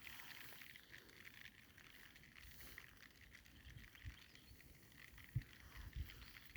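Faint rain pattering, a fine steady ticking, with a few soft low thumps in the second half.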